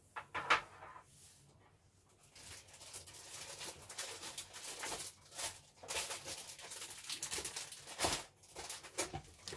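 Clear plastic bag crinkling and rustling as it is handled and opened, with a sharp click about half a second in.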